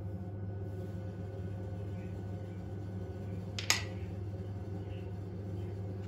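Steady low electrical hum, with one sharp click about three and a half seconds in.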